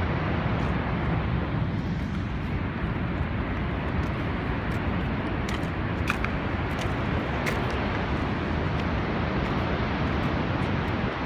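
Steady, unbroken rush of water from Niagara Falls, an even noise with no pauses.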